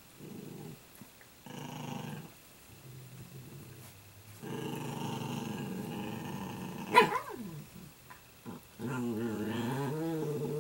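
Italian greyhound puppies growling in several bouts as they play-fight, with one sharp yelp about seven seconds in.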